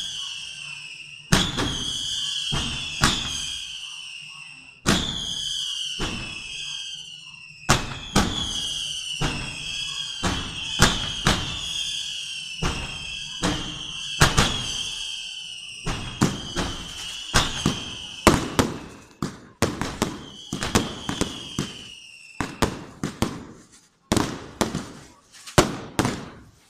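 Fireworks going off in a run of sharp bangs, many of them followed by a whistle that slides down in pitch. Near the end the bangs come faster and more tightly bunched, with short gaps between them.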